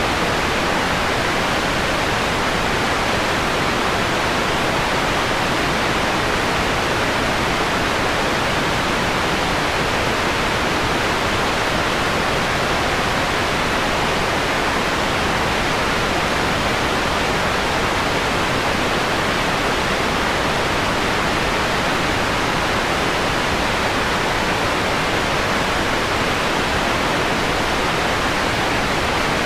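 Steady synthetic white noise, filtered to a mellow tone with the highs rolled off, unchanging throughout.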